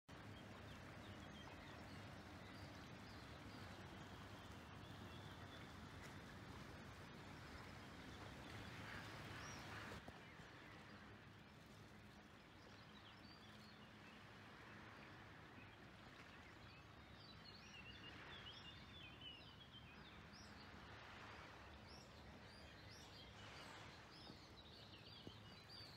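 Faint outdoor ambience: small birds chirping on and off over a low, steady hiss.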